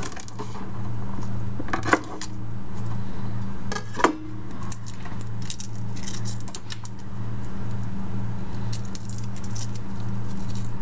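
A knife knocks twice on a cutting board while garlic cloves are cut, then garlic skins crackle in small papery ticks as the cloves are peeled by hand. A steady low hum runs underneath.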